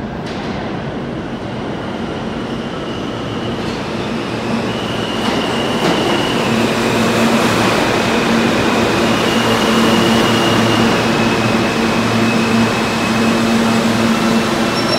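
R160 subway train pulling into the station and slowing along the platform. The wheels' rumble on the rails grows steadily louder, with several steady whines from its electric traction motors under braking.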